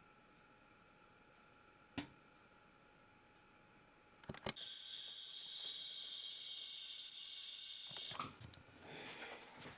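Ultrasonic dental scaler switched on with a click or two, running for about three and a half seconds as a steady high hiss of water spray with several thin whining tones, then cut off sharply. A single click comes about two seconds in, and quieter handling noise follows the scaler.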